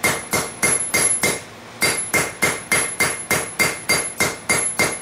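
Hand hammer striking hot railroad-spike steel on an anvil, about three blows a second with a short pause about a second and a half in. Each blow rings metallically. The blows are rounding off the square stock of the fork's shank.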